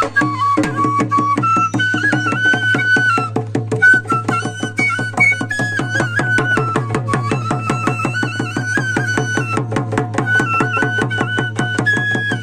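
Bamboo flute playing a folk melody over fast, even beats on a two-headed dhol, about five strokes a second.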